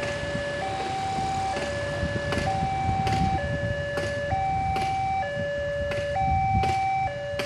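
Railway level-crossing warning alarm sounding a two-tone chime, alternating low and high notes of just under a second each with a sharp strike at each change: the warning that a train is coming and the barriers are closing. Motorcycle and street traffic rumble runs underneath.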